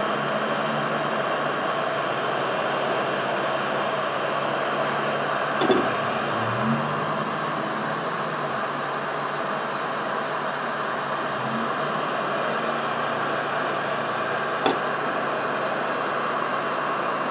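Electric heat gun blowing steadily at a nitro RC engine's crankcase, heating the case so the bearing can be knocked out. Two light clicks sound, about six seconds in and again near the end.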